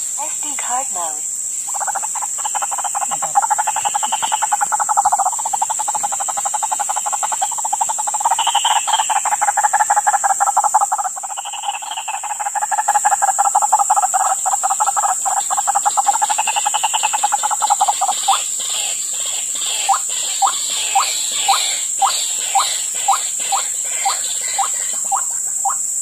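White-breasted waterhens (ruak-ruak) calling: long bouts of rapid, pulsing croaks, then from about two-thirds of the way in a run of separate croaking notes at about one and a half a second. A steady high-pitched hum lies underneath.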